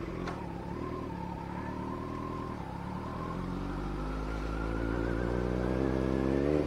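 Kawasaki Z900 inline-four engine pulling away from a standstill: a click just after the start, then the engine note climbs steadily and grows louder as the bike gathers speed, and cuts off abruptly at the end.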